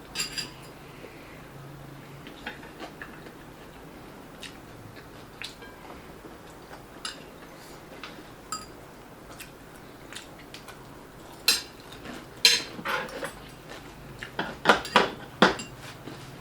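Eating utensils clinking and tapping against dishes in scattered short clicks, with a run of louder clinks in the last few seconds.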